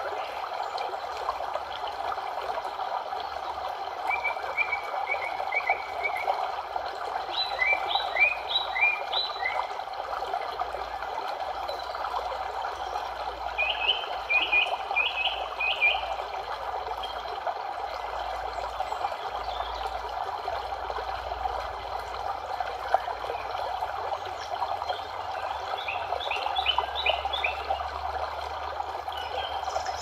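Steady rushing of running water, like a stream, with a bird calling over it in quick runs of short, high chirps, four times.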